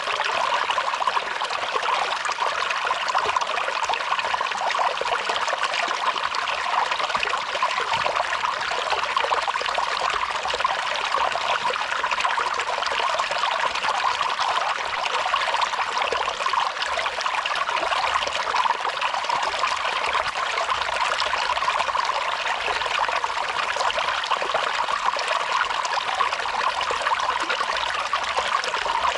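Water from a small canyon waterfall dripping and trickling steadily, many drops splashing together in an even, unbroken patter.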